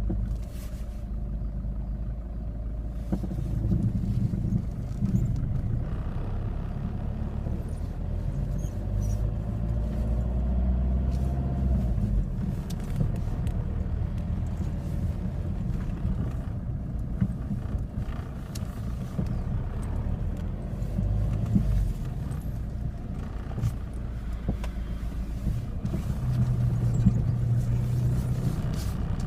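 Peugeot 206 HDi 90 diesel engine running, with odd vibrations and a noise as gears and reverse are engaged; the noise is clearly heard once late on. The owner wonders whether a failed engine mount is the cause.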